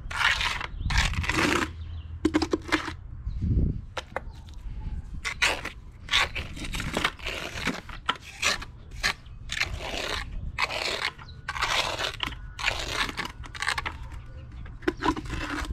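Small steel trowel scraping and pressing wet quick-setting cement into a patch on a concrete step. The strokes come one after another at an uneven pace, about one a second.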